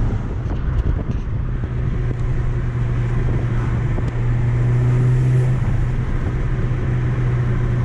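Stage 2-tuned 2013 VW Golf R's turbocharged four-cylinder engine and tyre noise heard from inside the cabin while cruising, a steady low drone. The car is still on its stock diverter valve.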